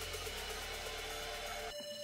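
Soft background music with held tones that shift to a new chord near the end.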